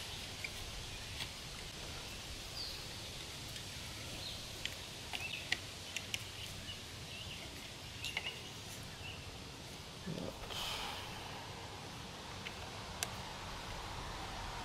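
Scattered light clicks and taps of a plastic brake-and-shift lever unit being slid onto and fitted to an aluminum handlebar, over a steady outdoor background hum. A brief low sound with a rising pitch comes about ten seconds in.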